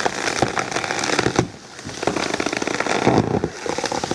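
Dense, uneven cracking and snapping of woody branches and brush, in bursts with two short lulls.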